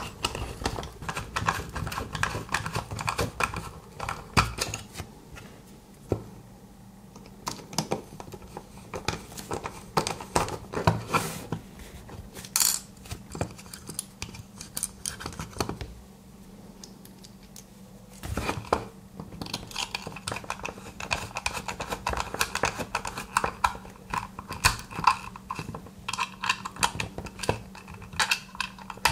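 Precision screwdriver turning small screws in an aluminium instrument case: runs of quick small metal clicks and scrapes from the bit in the screw heads, with handling knocks against the case. The clicking thins out for a few seconds twice, while the driver is lifted away and reset.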